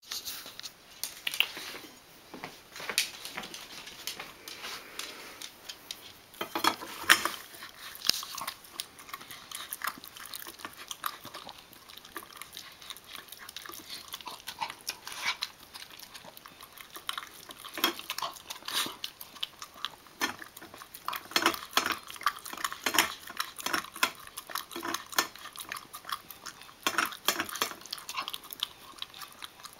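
Basenji eating fast from a stainless steel bowl in a wire stand: irregular clinks and scrapes of the metal bowl as she pushes into the food.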